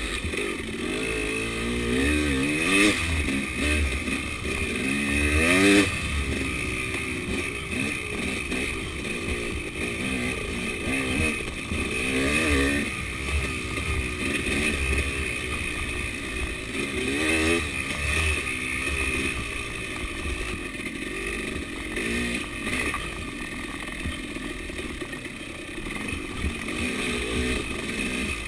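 KTM 300 two-stroke enduro motorcycle engine under way on a dirt trail, revving up and dropping back again and again as the throttle opens and closes. The loudest rev comes about six seconds in.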